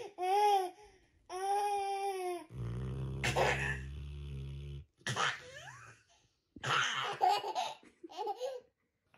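A toddler laughing in repeated bursts. Between the laughs, from about two and a half seconds in, a large sleeping mastiff-type dog gives one long, low snore lasting about two seconds, and the child laughs again right after it.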